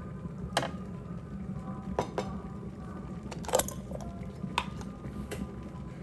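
Glass jar and kitchenware being handled: about six separate sharp clinks and knocks, the loudest about three and a half seconds in, over a steady low hum.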